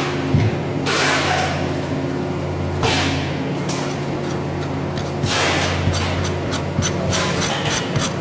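Butcher's cleaver working through a lamb rib section on a plastic cutting board: several long scraping strokes of the blade through meat and bone, then quick short chopping taps, about four a second, over the last couple of seconds. A steady low mechanical hum runs underneath.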